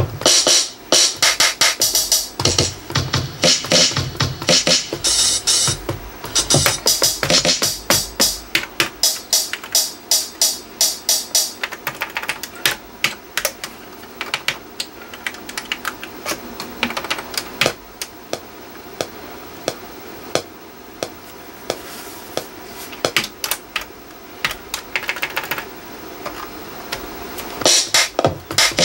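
Drum sounds from an Akai MPC3000 played live by fingers tapping its pads: a loose, uneven run of drum hits. The hits come thick for the first twelve seconds or so, thin out to quieter clicks of the pads being struck, and pick up again near the end.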